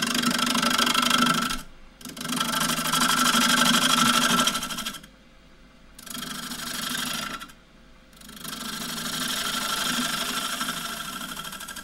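A 3/8 bowl gouge cutting dry maple on a wood lathe, skimming the face of a spinning rough-turned bowl. The cutting comes in four passes with short quieter gaps between.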